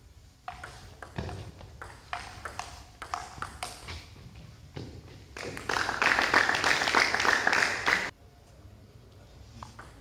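Table tennis rally: the ball clicks sharply off the rackets and table, about two hits a second. After the point ends, about two and a half seconds of loud clapping.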